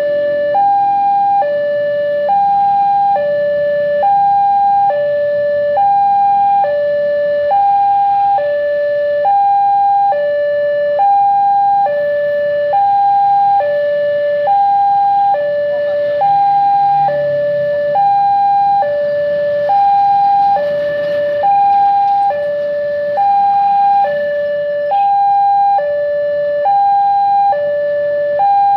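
Railway level-crossing warning alarm sounding a steady two-tone high-low chime, about one high-low pair a second, signalling an approaching train. Road traffic rumbles underneath.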